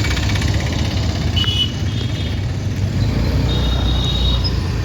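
Steady road and engine noise with a heavy low rumble, heard while riding a two-wheeler in traffic. Two short high-pitched tones sound over it, one about a second and a half in and a longer one near the end.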